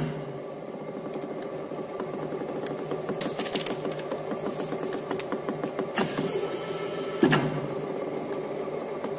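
Thread-rolling machine running: a steady hum with a fast rattle as its grooved dies roll threads onto a steel bolt blank. Sharper clicks come a few times, around three, six and seven seconds in.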